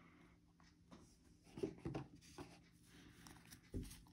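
Trading cards handled in a stack, each card slid off the top to show the next: faint, soft rustles and light taps of card on card, a few in the middle and one near the end.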